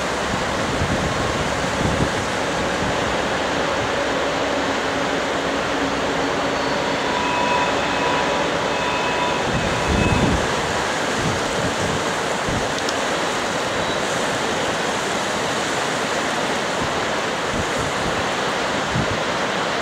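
Steady rush of a large, fast, silt-laden river, with gusts of wind buffeting the microphone, the strongest about halfway through.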